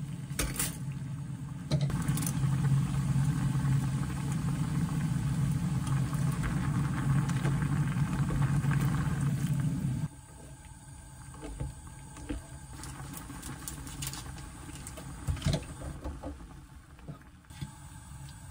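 A pot of pasta water at a rolling boil on a gas burner makes a steady low rumble, and tongs stir the spaghetti in it. The rumble cuts off suddenly about ten seconds in, leaving quieter bubbling with light clicks and knocks of utensils.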